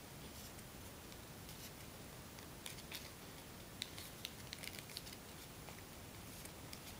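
Origami paper being folded by hand: faint rustling, with a scatter of small crinkles and ticks from about halfway through as a reverse fold is worked into the paper.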